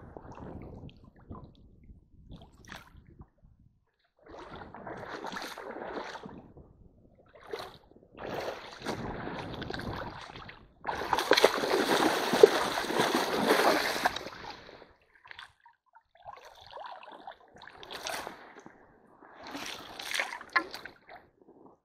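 Shallow stream water splashing and sloshing as a hand net is worked on the rocky bed by a wading person, in several separate bouts. The loudest bout is a continuous stretch of splashing of about three and a half seconds, starting about eleven seconds in.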